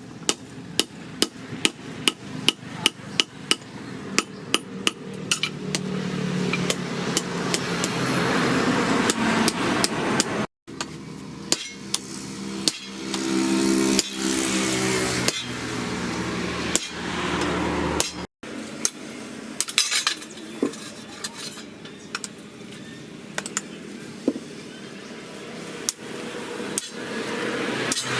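Hammer strikes on steel: a quick, even run of sharp blows about three a second, later giving way to sparser strikes. In between there is a stretch of steady rushing noise with a low hum.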